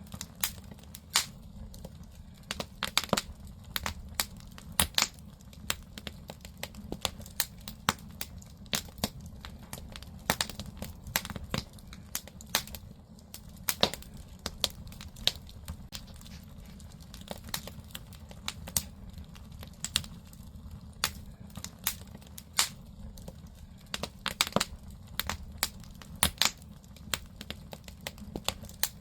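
Firewood burning in a traditional Korean agungi (wood-fired firebox), crackling with irregular sharp snaps and pops, several a second, over a steady low rumble.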